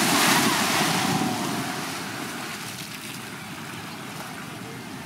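Small waves washing up onto a sandy beach, the rush of surf loudest at first and dying away over the next couple of seconds to a softer steady wash.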